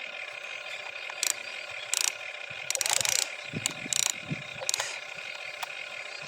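Small electric motor and gearbox of a radio-controlled construction model whining steadily, with a series of short clicks and clatters, the busiest about three seconds in.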